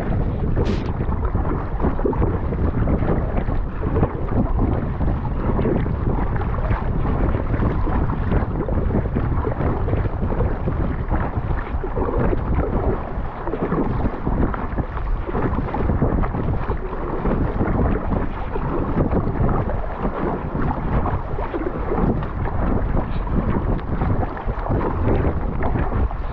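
Strong wind buffeting the microphone in a steady low rumble, over water splashing around an inflatable kayak being paddled into the wind.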